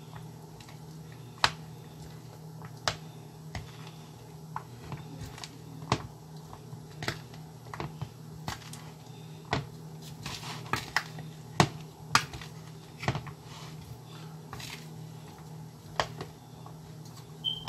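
Spoon knocking and clinking against a bowl as a potato-and-carrot salad is stirred: irregular sharp taps, one or two a second, over a steady low hum.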